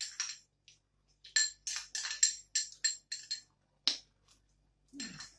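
Metal spoon clinking and scraping against a small glass bowl as the last of the food is scooped out: a quick run of about a dozen ringing clinks over roughly two seconds, then one more a moment later.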